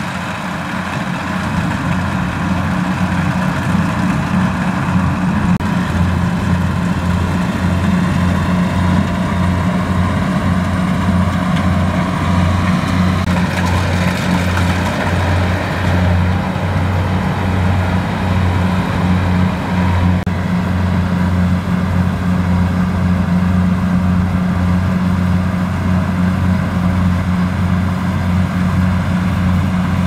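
Kubota rice combine harvester running steadily as it cuts rice: an even, pulsing diesel engine drone with machinery noise from the cutting and threshing works over it.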